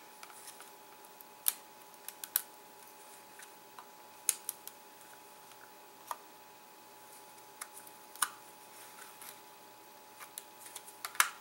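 Diagonal cutters snipping at the plastic case of a DJI Phantom 4 drone battery: separate sharp snaps and clicks at uneven intervals, several seconds apart at times.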